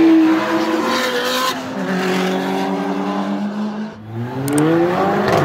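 Recorded race car engine revving, its pitch sliding down and holding, then climbing again about four seconds in.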